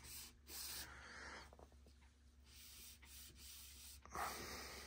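Faint rubbing of a cloth wiping varnish over the wooden side panel of a Technics SU-7600 amplifier's cabinet, in short strokes, the clearest about half a second in and again near the end.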